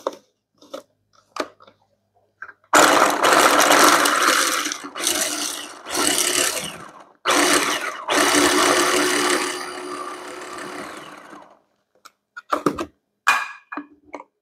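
Small electric food chopper mincing garlic, its motor whirring in a few bursts of several seconds each, the last one winding down. A few light clicks of handling come before it.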